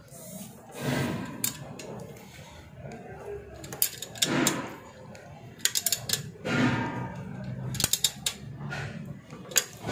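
Ratchet wrench clicking in short quick runs as the motorcycle's exhaust header flange nuts are tightened.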